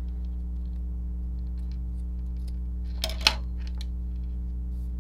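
Steel scissors giving two sharp clicks about three seconds in, the second one loud, against a steady low hum and faint small ticks of handled bra fabric.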